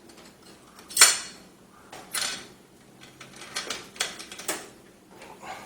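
Clicks and clinks of metal parts being handled and screwed in while a motherboard I/O cover is fitted in a PC case: one sharp knock about a second in, then a scatter of lighter clicks.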